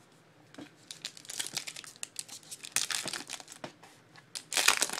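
Crinkling and tearing of a trading-card pack's wrapper as it is opened, in quick crackly bursts, loudest near the end.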